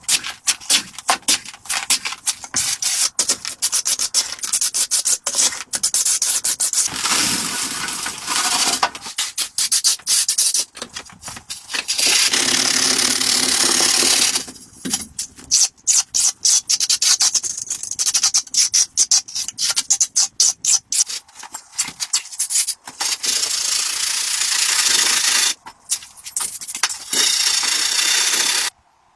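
Wood being sanded or rubbed by hand: runs of quick back-and-forth strokes alternate with longer steady passes, and the sound cuts off suddenly near the end.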